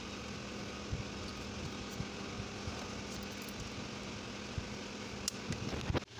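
Steady background machine hum with a constant low tone, with a few light knocks as rubber hoses and fittings are handled and pushed onto their pipes. The sound drops out abruptly near the end.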